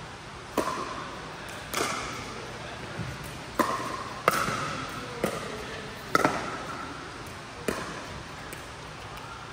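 Pickleball rally: paddles striking a plastic pickleball back and forth, about eight sharp pops roughly a second apart, each ringing briefly in the reverberant indoor court hall. The rally stops about three-quarters of the way through.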